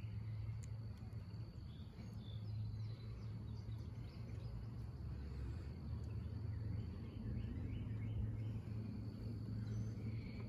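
Outdoor background sound: a steady low hum with faint, scattered bird chirps.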